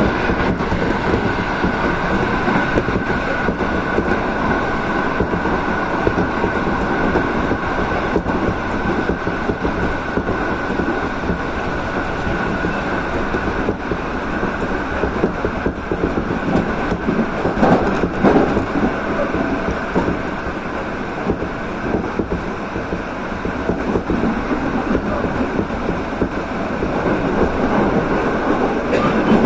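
Running noise of a moving electric train heard from inside the carriage: a steady rumble of wheels on rail with a thin steady whine above it.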